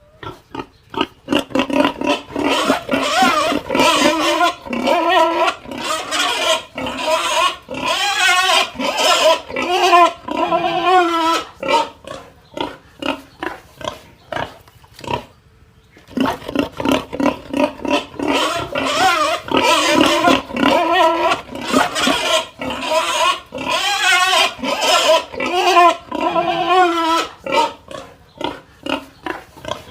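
Pig crying out in a rapid run of short, wavering squeals, one after another. The calls stop for about a second and a half a little past the middle, then start again just as fast.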